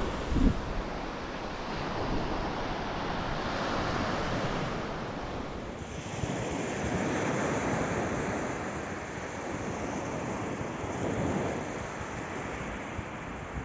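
Sea surf washing onto a beach in slow swells, with wind buffeting the microphone. A brief thump about half a second in.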